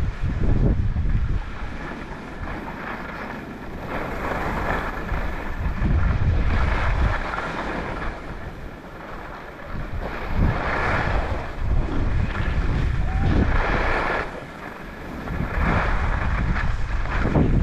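Wind buffeting the microphone, with the hiss and scrape of edges carving over packed snow swelling every few seconds as the rider turns.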